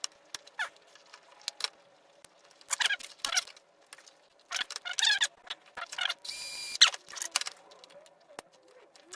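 Small screws squeaking as a screwdriver turns them out of a plastic electronic toy case: a run of short, high squeaks with wavering pitch.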